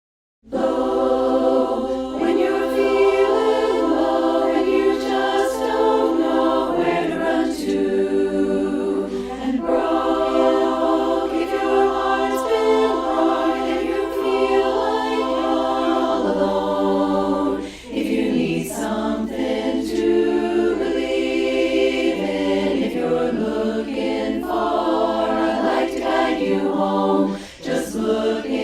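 A choir singing in harmony with no instruments, holding chords that shift in pitch, with short breaks between phrases about 18 and 27 seconds in. The voices are mixed together from separately recorded singers for a virtual chorus.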